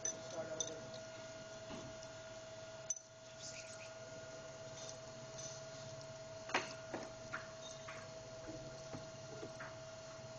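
Cam grinding machine humming steadily, with scattered light clicks and taps, the sharpest about two-thirds of the way through, as the camshaft and tooling are set up for indexing.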